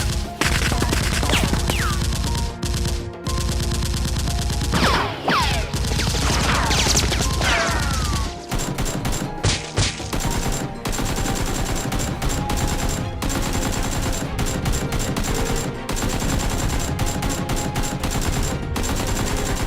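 Sustained rapid automatic gunfire, many shots overlapping in a dense volley, with several falling whistles about five to eight seconds in.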